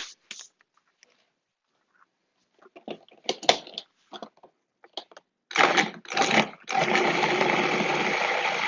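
Plastic lid clicking and clattering into place on a food processor bowl, then two short pulses of the motor, and from about two seconds before the end the food processor running steadily, chopping cold butter into sugar for shortbread dough.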